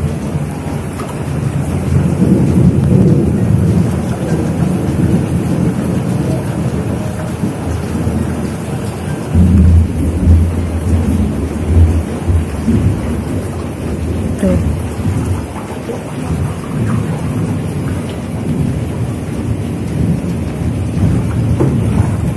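Heavy tropical rain pouring down steadily, with a low rumble of thunder swelling about nine seconds in and fading a few seconds later.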